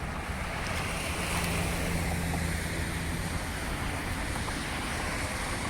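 Wind on the microphone over a steady rumble of road traffic, with a low hum from a passing vehicle between about one and three seconds in.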